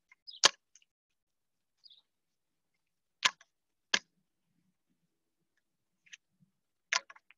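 Winterguard practice rifle being spun and caught by hand: a few sharp smacks as the hands catch it, irregularly spaced, with silence between.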